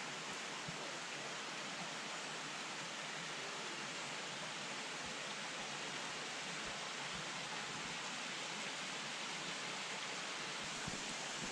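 Steady rushing of flowing water, an even hiss, with a few faint thuds near the end.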